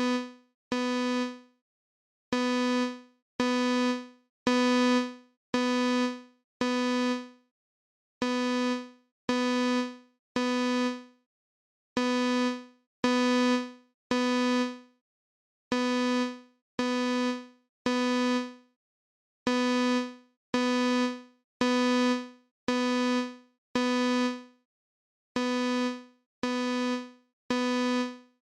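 Synthesized imitation of a Simplex fire alarm sounding code 3 (temporal-three), made in Google Song Maker. A single low electronic note, each about half a second long and fading, repeats mostly in groups of three with a longer pause between groups.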